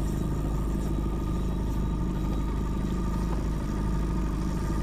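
Small outboard motor running steadily at low trolling speed, with a low, even drone.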